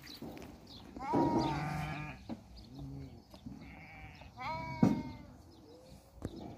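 A mixed herd of sheep and goats bleating: a loud, wavering bleat about a second in, fainter calls after it, and another loud bleat at about four and a half seconds with a sharp click in the middle of it.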